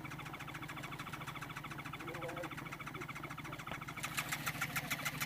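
A motorcycle engine idling with a rapid, even pulse, louder about four seconds in.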